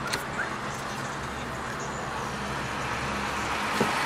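Steady low vehicle rumble and hiss heard from inside a car with the door open, with a few light clicks near the start as the dashboard controls are handled and another near the end.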